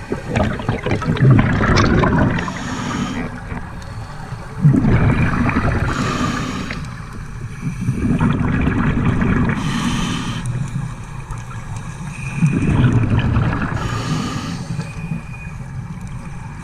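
Scuba diver breathing through a regulator underwater: about four breaths, each a long gurgle of exhaled bubbles followed by a short hiss of the regulator on the inhale.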